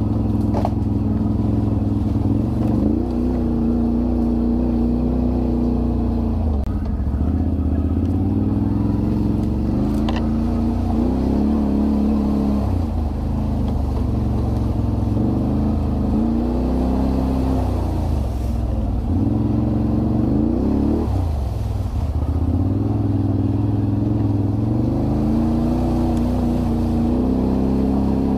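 Can-Am Renegade 1000 ATV's V-twin engine running under changing throttle, its pitch rising and falling every few seconds as it speeds up and slows down.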